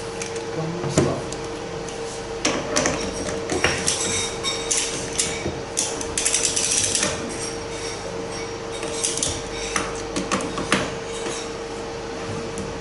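Ratchet wrench clicking and metal parts clinking and knocking as a high-pressure fuel pump is bolted onto a test-bench mounting bracket. There is a quick run of ratchet clicks about six seconds in, over a steady background hum.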